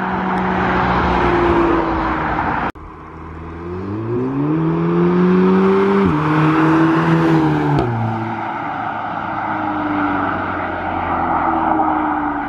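Audi S3 saloon's turbocharged 2.0-litre four-cylinder heard in drive-bys on its exhaust before the custom catback. A steady comfort-mode pass is cut off suddenly, then a sport-mode pass follows: the car accelerates toward the listener with its revs rising and shifts up twice, the pitch dropping about six and about eight seconds in.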